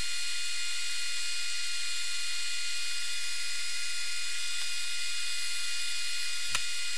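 Steady hiss with faint high steady tones in it, unchanging throughout, and one short click about six and a half seconds in.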